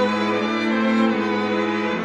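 Background music of bowed strings, violin and cello, playing slow held notes.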